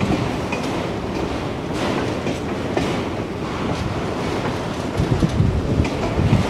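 Freight train of enclosed autorack cars rolling past at close range: a steady rumble of steel wheels on rail, with sharp clicks in the first few seconds and heavier low knocks near the end.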